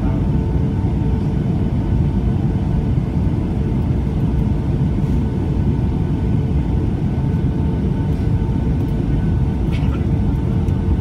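Steady cabin noise inside a Boeing 757-200: a constant low rumble with a steady engine hum.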